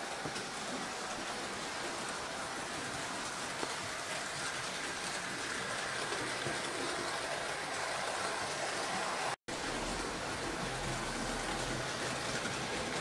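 Model trains running on the layout's track: a steady whirring rumble of locomotive motor and wheels on rail. It drops out sharply for an instant about nine seconds in. A low hum then joins for a few seconds.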